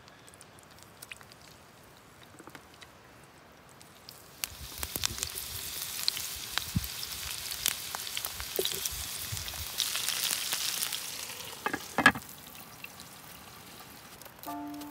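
Pumpkin slices sizzling as they fry in oil in a pan over a campfire, the sizzle starting about four seconds in after a quieter stretch of faint ticks. Near the end, two or three sharp clanks as a glass lid goes onto the pan.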